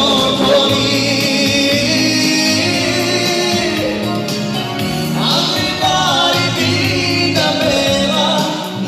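Live band music: a man singing into a microphone over two electronic keyboards, amplified through the stage speakers.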